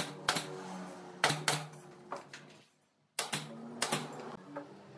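Sharp knocks and taps of woodworking, mostly in quick pairs, over a low steady hum; the sound drops out briefly about three seconds in.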